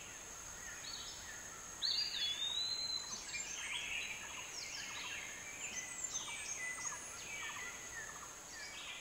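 Forest birds calling, a string of short whistled chirps and gliding notes that starts about two seconds in, over a steady high-pitched tone.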